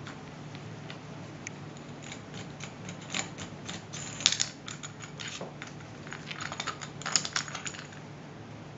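Quick runs of light clicks and taps from gloved hands handling a clear acrylic clamping plate and its steel bolts, in two bursts in the middle, over a steady low hum.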